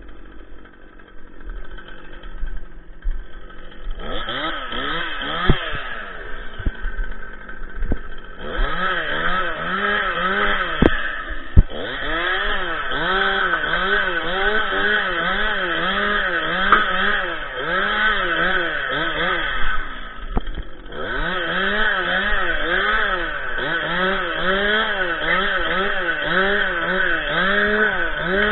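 Stihl MS 261 two-stroke chainsaw running at high revs, its pitch rising and falling in regular swells a little more than once a second, with short dips about a third of the way in and again past the two-thirds mark. The first few seconds are quieter, with only a few knocks.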